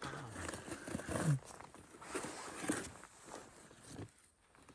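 A cardboard beer carton being torn open and rustled by hand, in irregular crackles and short clicks, with a brief bit of voice at the start.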